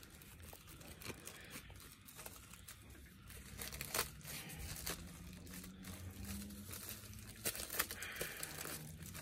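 Clear plastic film crinkling and crackling in irregular small crackles as it is handled and peeled off a hard back protector.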